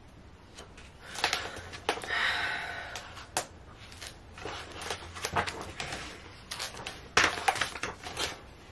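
Pages of a large cookbook being flipped through by hand: repeated paper rustling with a series of sharp page flaps and snaps.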